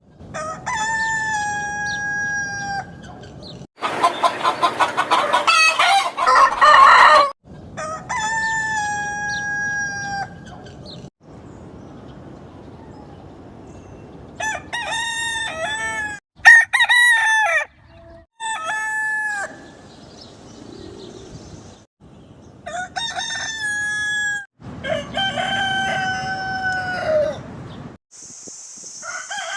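Roosters crowing: a string of separate crows, each a long call ending on a drawn-out held note, cut one after another with abrupt breaks between recordings. A few seconds in comes a louder, harsher, rapidly pulsing stretch.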